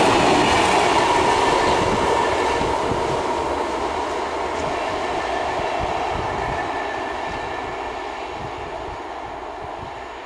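A freight train of loaded stake flat wagons rolls past, its wheels rumbling and clattering over the rails, then fades steadily as the end of the train moves away.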